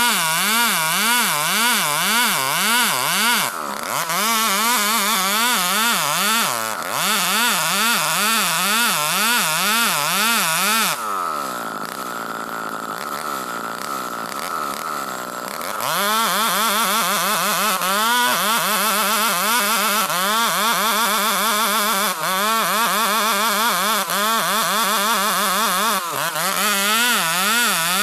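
Two-stroke chainsaw ripping lengthwise along a felled ulin (Bornean ironwood) log at high revs, its engine note wavering up and down about one and a half times a second as it works in the cut. About eleven seconds in it drops to idle for some five seconds, then revs back up and cuts on.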